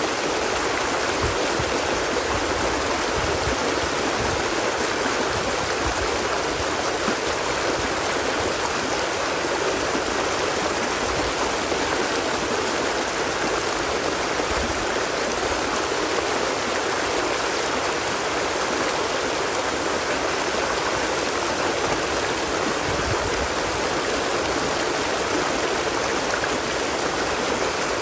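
Running water flowing steadily: an even, unbroken rush with no pauses or separate splashes.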